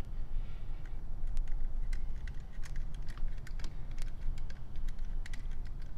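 Small irregular clicks and scrapes of a precision screwdriver working in a tiny set screw deep in a hole in a Canon Dial 35 camera body, over a low handling rumble.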